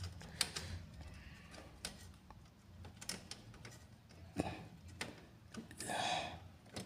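Faint, scattered clicks and taps from plastic cable clips and a wire harness being handled and pressed into place inside a laser printer, over a low steady hum.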